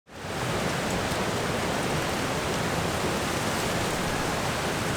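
Steady rushing noise of strong wind, with an unsteady low rumble, starting abruptly out of silence.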